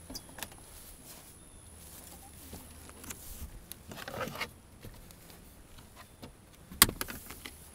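Faint handling noises from an open car door and the camera: scattered light rustles and small clicks, with one sharp click near the end.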